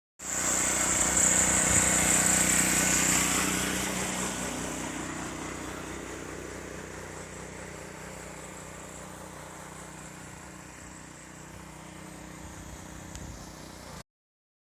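Pressure washer running, a steady motor hum under the hiss of the water spray. It is loudest for the first few seconds, then fades to a lower, steady level, and stops abruptly near the end.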